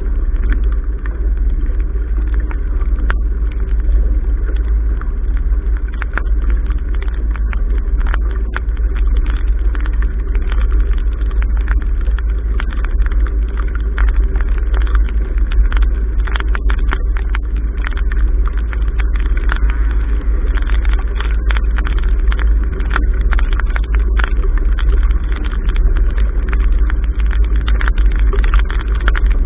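Steady wind and water noise at a sailboat's bow: a deep, constant buffeting of wind on the microphone over the rush of water along the hull, dotted with many sharp ticks of rain and spray striking the camera housing.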